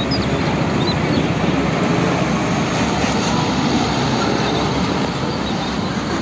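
Heavy tanker trucks driving by on a road: steady diesel engine and tyre noise.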